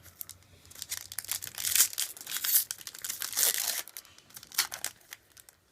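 Foil wrapper of a Yu-Gi-Oh! booster pack crinkling and being torn open: a dense run of crackles and rips for about three seconds, dying down to a few soft rustles near the end.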